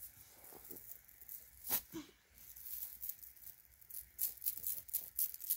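Plastic bead necklaces clicking and rattling as they are handled and let fall onto a pile of beads, a few scattered clicks at first, then a quick run of clicks in the second half.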